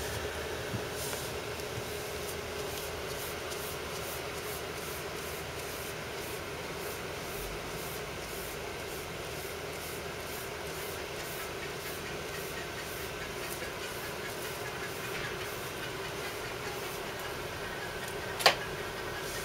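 Steady room hum and hiss, with faint regular ticking high in pitch and one sharp click near the end.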